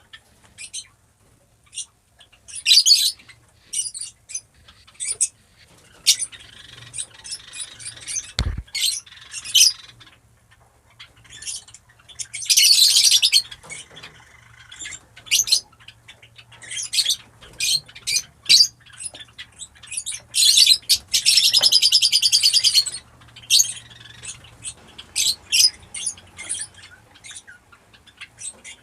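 Fischer's lovebirds calling: a string of short, shrill chirps, with two longer runs of rapid chattering, one a little before halfway and one about three-quarters in. A single dull thump about eight seconds in.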